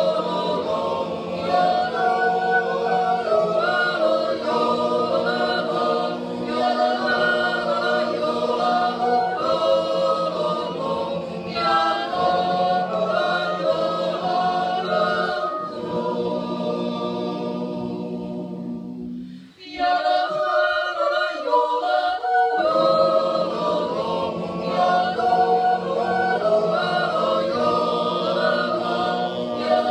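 Small men's choir singing a cappella in several parts. About two-thirds of the way through, a held chord fades out and the singing breaks off briefly before the next phrase begins.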